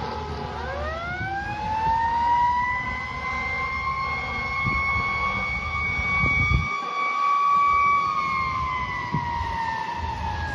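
Fire truck siren winding up from a low pitch to a high, steady wail, holding it for several seconds, then slowly winding down near the end, over the low rumble of the passing apparatus.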